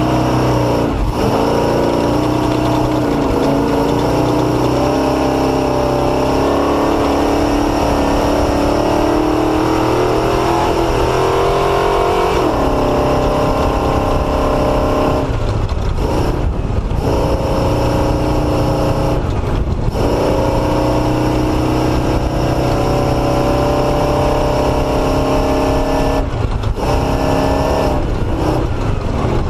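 Motorcycle engine running under load while being ridden, its pitch rising and falling with speed. The note dips briefly a few times in the second half.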